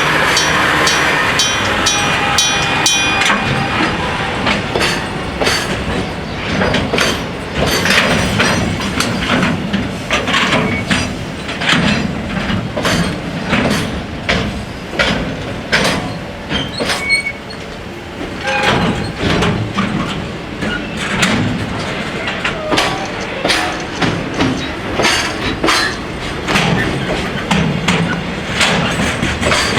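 Freight train wagons rolling across a level crossing, their wheels clacking over the rail joints at an uneven rhythm, roughly one or two clacks a second.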